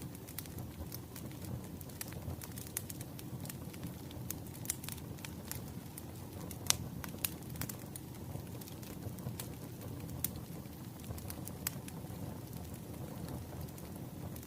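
Wood fire crackling: a steady low rumble of burning logs with irregular sharp pops and snaps, one louder pop near the middle.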